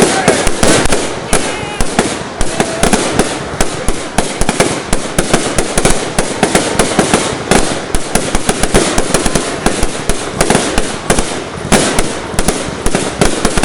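Fireworks display: a dense, unbroken barrage of bangs and crackles, many shots a second.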